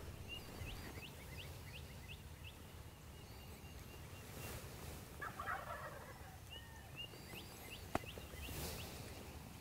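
Distant Rio Grande wild turkey gobbler gobbling once from the roost, faint, about five seconds in, with small birds chirping repeatedly in the background and a single sharp tick near the end.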